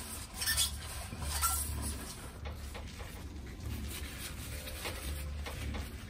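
A rag wiping out a freshly honed engine cylinder bore, with scattered light clinks and knocks of handling on the metal block.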